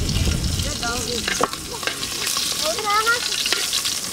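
A hand stirring and swishing food in water in a metal pot, a steady wet scraping and sloshing.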